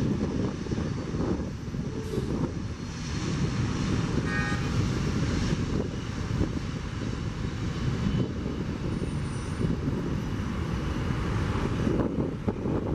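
Jet engines of an Airbus A330 twin-engine airliner running as it rolls along the runway: a steady, loud rumble with a hiss on top.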